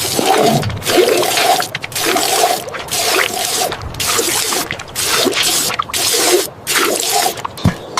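Water rushing and splashing in a run of short bursts, each under a second long.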